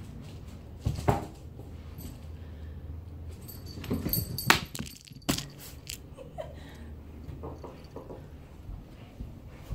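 Cat leaping for a thrown toy on a tiled floor: sharp knocks and thumps of paws and toy on the tiles, loudest about four and a half and five seconds in. A short whimper-like vocal sound comes about a second in.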